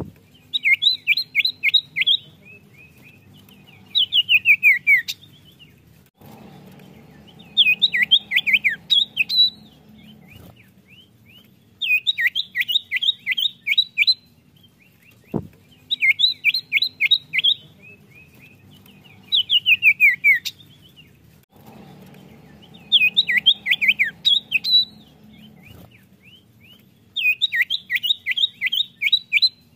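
Common iora (cipoh) singing: phrases of rapid, steeply falling whistled notes, each phrase a second or two long, repeated every two to four seconds.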